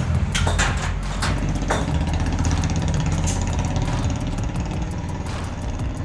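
Rebuilt Lucas TVS tractor starter motor spinning under battery power on test, a steady running whir with a few sharp clicks in the first two seconds.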